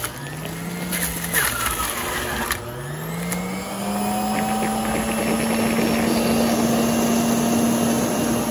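Electric centrifugal juicer running as fruit is pushed down its feed chute, with a few sharp clicks early. About two and a half seconds in the motor's pitch climbs, then holds a steady hum.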